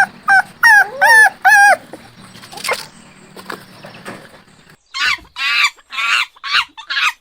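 Dog making short high yelping and whining calls, then a quieter stretch, and about five seconds in a fast run of harsher barks.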